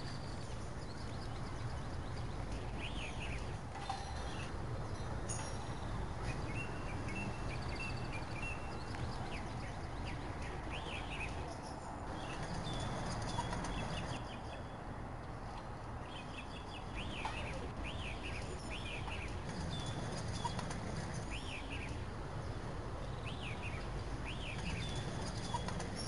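Small songbirds chirping, with short high notes repeated in bouts and now and then a rapid trill, over a steady hum of city traffic.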